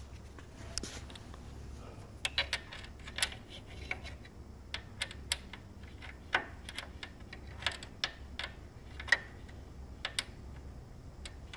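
Irregular clicks and knocks of plastic printer parts being handled and pried inside an HP Designjet 5500, some twenty scattered ticks with the sharpest about nine seconds in, over a low steady hum.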